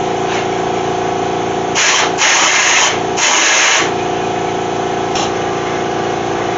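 Compressed air blown from an air nozzle into the oil pressure sending unit port of a Ford Falcon engine: three short hissing blasts about two seconds in, clearing a blocked oil passage between the oil galley and the sending unit. A steady hum continues underneath.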